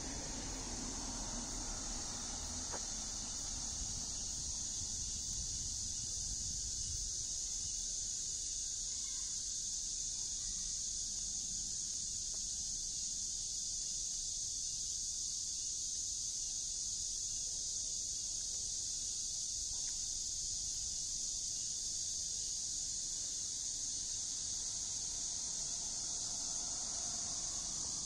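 Steady high-pitched drone of an insect chorus, with a faint low traffic rumble underneath, strongest near the start.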